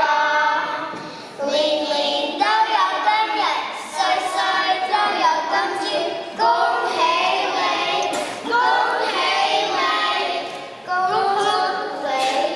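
A small choir of young children singing a birthday song together, with brief pauses between phrases.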